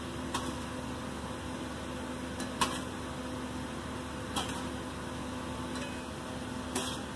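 Metal tongs clicking against chicken pieces and the aluminium pot as the chicken is laid on the rice: four short sharp taps, the loudest about two and a half seconds in. A steady machine hum runs underneath.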